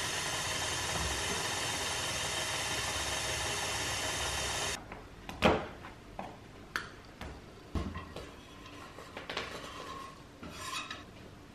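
KitchenAid stand mixer running steadily as it mixes cake batter, switched off about five seconds in. After it, a knife gives a few sharp knocks on a wooden chopping board, and near the end the board scrapes against the mixer bowl's rim as its contents are tipped in.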